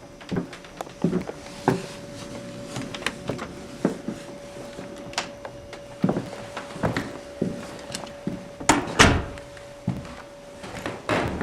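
A series of irregular knocks, clunks and thuds, like things being handled and doors or drawers moved, over a faint steady hum that stops near the end. The loudest pair of knocks comes about nine seconds in.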